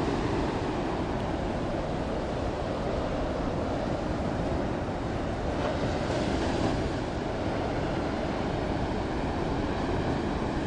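Steady low rumbling noise with no distinct events, and nothing in it that can be picked out as the ship itself.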